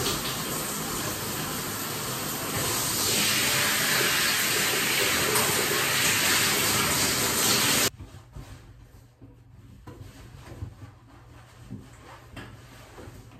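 Shower running, water spraying onto a person's head as he washes his hair, louder from about three seconds in. It cuts off suddenly about eight seconds in, leaving a quiet small bathroom with a few faint clicks.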